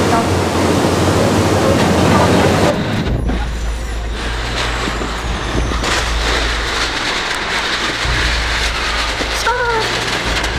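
Wind and the rushing water of a fast ferry's wake on an open deck. After a sudden cut about three seconds in, it becomes the steady low rumble of a car's cabin as the car moves slowly.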